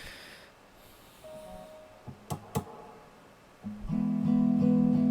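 Acoustic guitar: after a few quiet clicks and one short single note, steady strummed chords start loudly about three and a half seconds in.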